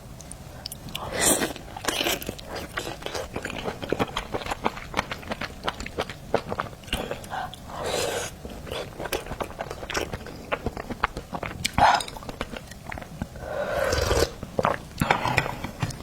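Close-up mouth sounds of a person eating seafood: chewing and biting with many quick, wet smacks and clicks, and a few longer, louder bursts of noise.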